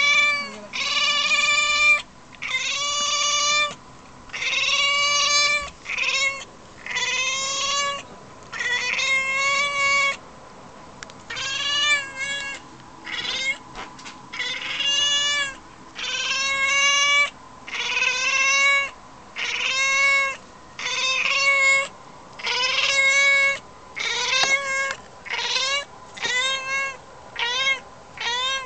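A domestic cat meowing over and over, about twenty calls in a row, each drawn out with a slight rise and a falling end. In the last few seconds the meows come shorter and quicker.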